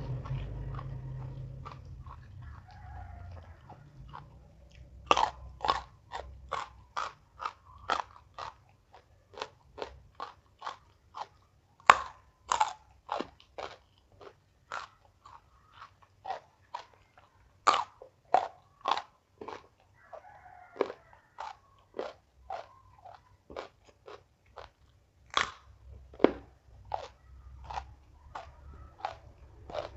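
A person chewing crunchy food close to the microphone. After a quieter start, crisp crunches come steadily about two a second from about five seconds in, with a few short pauses.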